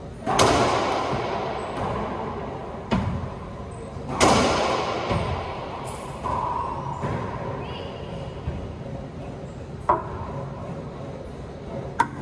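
Racquetball rally: the hollow rubber ball cracked by racquets and smacking the court walls, five sharp hits spread over the stretch, the two loudest near the start and about four seconds in. Each hit rings on in the long echo of the enclosed court.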